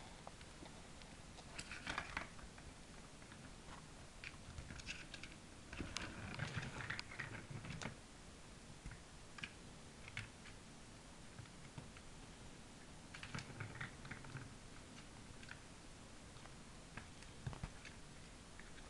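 A kitten batting at a plastic circular ball-track cat toy: faint scattered clicks and rattles of the ball and paws on the plastic, coming in a few short flurries, the longest about a third of the way in.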